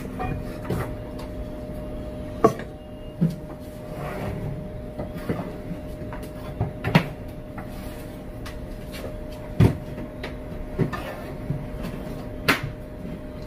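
Kitchen cupboard doors and things being handled: a handful of scattered sharp knocks and clicks over a steady low hum.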